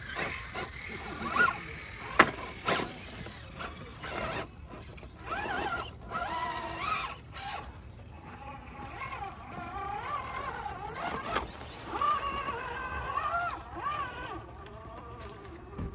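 Small electric motor and gears of an RC rock-crawler truck whining, the pitch rising and falling with the throttle, with a few sharp knocks as it works over the rocks, the loudest about two seconds in.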